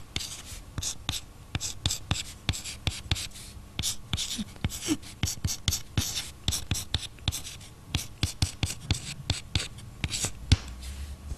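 Rapid, irregular clicking and scratching, several sharp clicks a second, with no speech.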